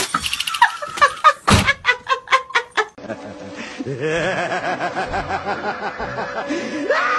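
A person laughing in quick repeated bursts, followed after a cut by more wavering, laugh-like vocal sounds.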